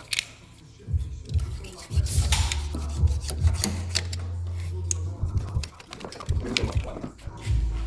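Background music with a steady low bass, over scattered sharp clicks and knocks.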